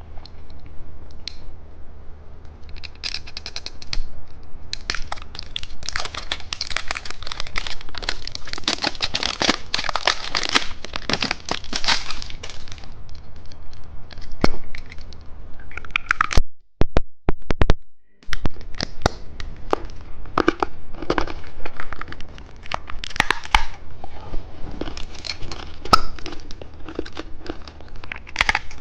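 Plastic candy wrappers crinkling and tearing as the packaging is handled and opened, in irregular crackly bursts with sharp clicks, briefly breaking off a little past halfway.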